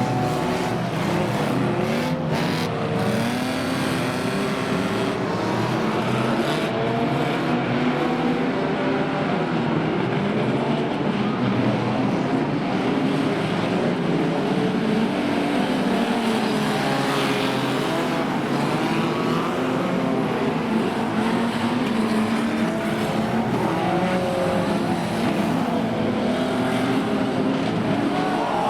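Several banger-racing cars' engines revving and labouring together as they race around the track, the pitches rising and falling, with a few sharp knocks about two seconds in and again a few seconds later.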